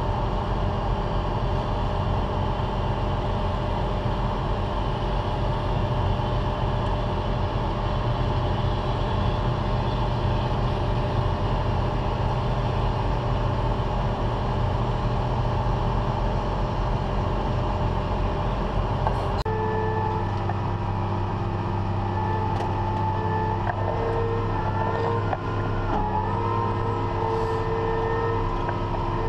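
Heavy farm machinery running steadily under load during harvest. About two-thirds of the way through, the sound changes abruptly to a different steady machine sound with a clear whine.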